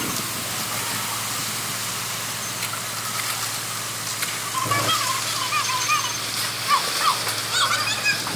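Concrete pump truck placing a slab: steady rushing, splattering noise of wet concrete gushing from the boom's end hose, over the low steady hum of the pump's engine.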